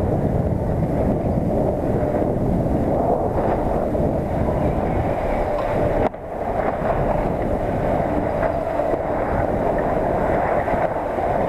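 Skis sliding and scraping over packed snow at speed, a steady rough rumble picked up by a head-mounted action camera, which drops away suddenly for a moment about halfway through and then builds back.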